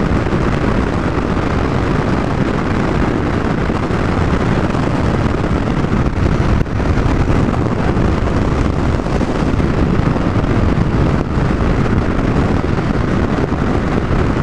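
Steady wind rush on the microphone mixed with the engine and road noise of a Triumph Tiger 1050 motorcycle cruising at a constant speed.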